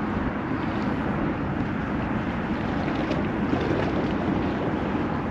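Steady wind noise on the microphone, with choppy high-tide estuary water lapping at the bank.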